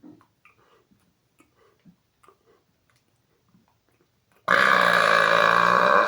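A man's loud, deliberate burp starting about four and a half seconds in: one long, steady belch of about a second and a half that cuts off at the end. It is a loud-burp attempt that falls just short of 120 decibels on a meter. Before it there are only faint small clicks and breaths.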